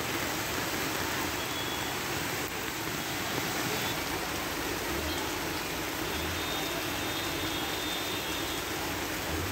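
Heavy rain and floodwater rushing along a waterlogged street: a steady, dense rush of water noise.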